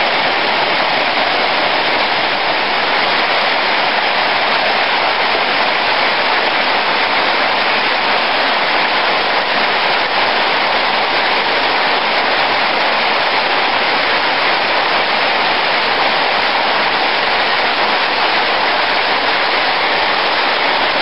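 Heavy rain pouring down steadily, an even unbroken hiss.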